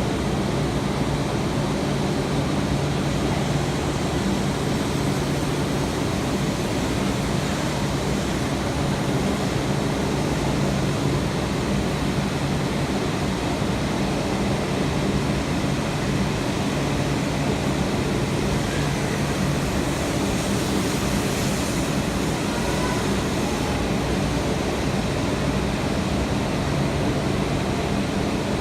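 Train running noise: a steady, even rumble with a low hum underneath, holding at the same loudness throughout.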